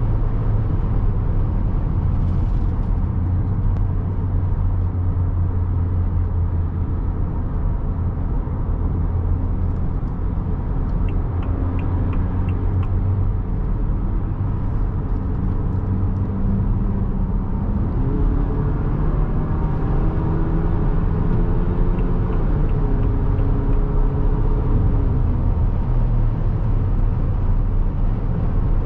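Cabin sound of a 2023 Haval H6-GT's 2.0-litre four-cylinder and sport exhaust at highway speed: a steady low drone over tyre and road noise. About eighteen seconds in the engine note climbs as the car accelerates, then drops back twice as the dual-clutch gearbox shifts up.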